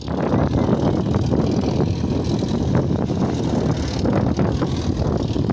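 Small single-engine propeller plane's piston engine and propeller running steadily as it taxis.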